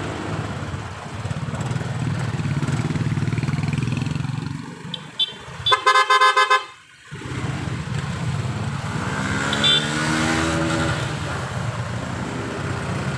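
Scooter engine and road noise while riding, with a quick burst of short horn beeps about six seconds in. Later, another engine rises and then falls in pitch.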